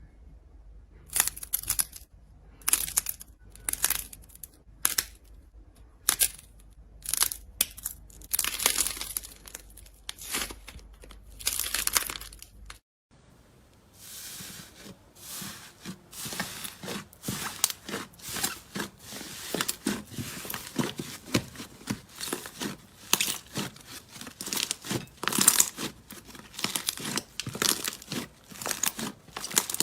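Slime being squished and stretched by hand, giving crackly, tearing sounds in separate bursts. About 13 seconds in there is a short break, after which the crackling comes thicker and faster.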